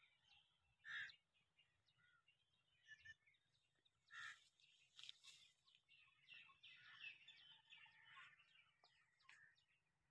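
Faint bird chirps and calls, many short ones scattered through, busiest in the middle.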